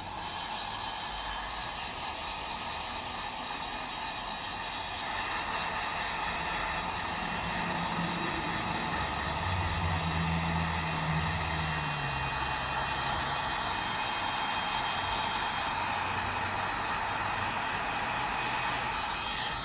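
Heat gun running, a steady hiss of blowing air with the fan motor's hum, growing a little louder about five seconds in.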